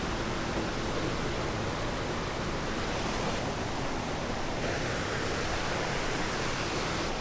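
Waterfall water rushing, a steady even roar of falling and splashing water.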